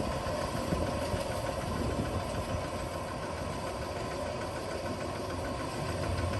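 Kubota rice combine harvester running steadily, its engine and machinery giving an even, dense mechanical rattle.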